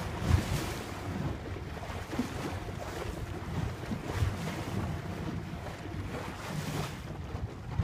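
Wind gusting across the microphone aboard a boat on open sea, with sea water washing around the hull and a few soft low buffets.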